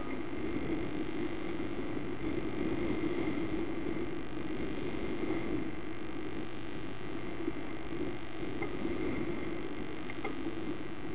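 Steady noise of a motor yacht under way at sea, picked up by an onboard camera microphone, with a few faint clicks.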